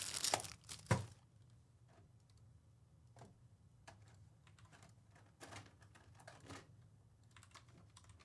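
A brief rustling noise in the first second, then faint, scattered computer keyboard typing and clicks.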